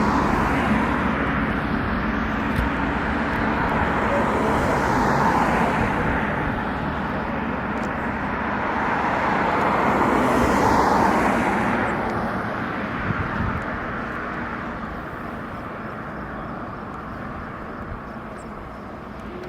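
Aircraft engine noise, a broad rushing sound that swells twice and then fades away as the aircraft moves off.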